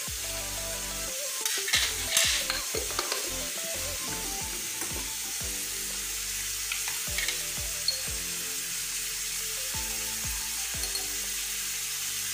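Pieces of liver sizzling in olive oil in a pan, stirred with a wooden spoon, with a few louder scrapes about two seconds in.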